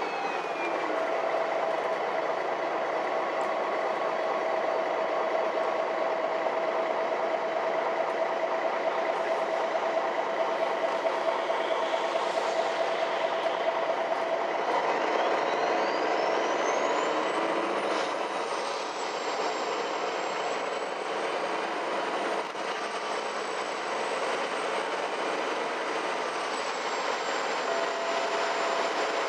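Ride noise inside a MAN NG 313 articulated city bus: the engine and running gear make a steady noise with a steady mid-pitched tone. About halfway the tone stops and a high whine rises over about three seconds, then stays high and steady.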